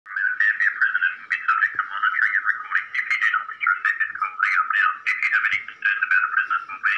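A small bird singing a continuous warbling song of quick chirps and gliding whistles.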